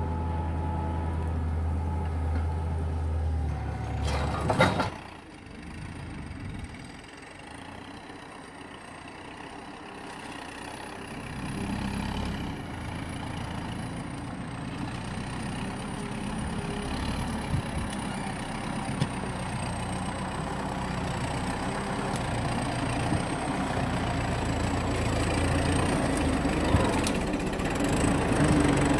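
MTZ 952.3 tractor's diesel engine running close by, cut off by a sharp knock about five seconds in. The engine then comes back quieter and grows steadily louder as the tractor drives nearer through deep mud.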